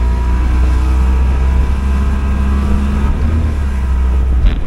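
Mercury outboard motor driving a small open fishing boat at speed, with a heavy rush of water and wind under the engine note. A single thump near the end.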